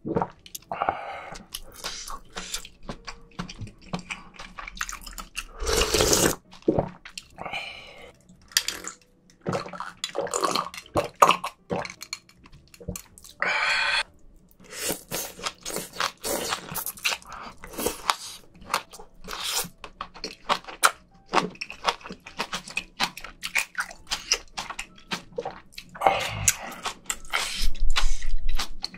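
Close-miked wet chewing and crunching of spicy seafood stew, with many small irregular mouth clicks. Several longer, louder slurps of broth and stringy vegetables stand out, one near the start, one a quarter of the way in, one about halfway, and one near the end.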